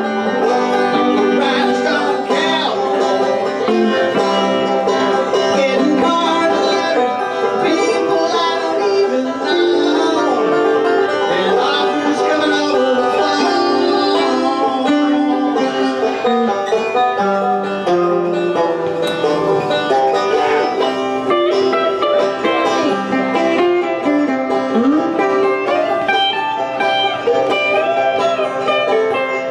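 Live bluegrass-country instrumental: banjo picking together with an amplified electric guitar, playing continuously, with a few bent, sliding notes near the end.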